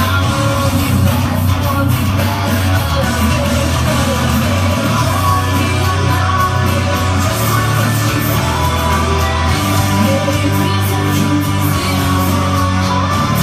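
Loud recorded song with a singing voice, played over a nightclub's sound system for a drag performance.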